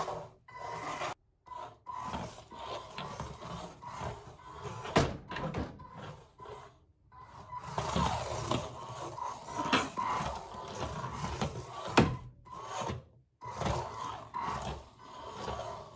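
Beetleweight combat robot's drive motors whining and changing pitch as it drives and turns on a laminate wood floor, its wheels scuffing, with a few sharp knocks. The sound drops out briefly a few times.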